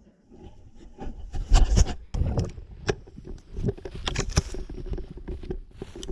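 An African lion mouthing and chewing a GoPro camera, picked up by the camera itself: irregular knocks, scrapes and thuds of teeth and mouth on the housing, loudest about two seconds in, with sharp clicks after that.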